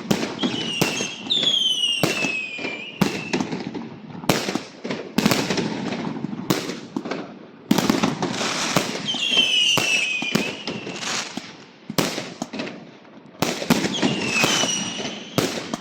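Fireworks and firecrackers going off: many sharp bangs and crackles. Three whistling fireworks cut through, each a high whistle that falls in pitch, about half a second in, around nine seconds in, and near the end.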